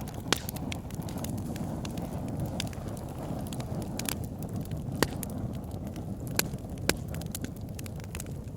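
Wood fire crackling: a steady low rumble of flames with irregular sharp pops and snaps, a few louder ones scattered through.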